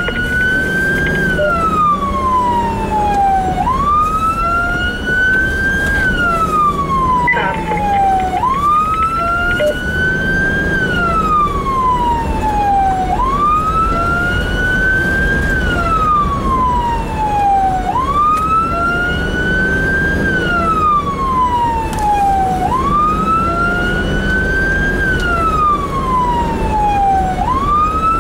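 Fire-rescue vehicle's siren on a wail, its pitch sweeping up and sliding back down about every four and a half seconds, heard from inside the cab over engine and road noise.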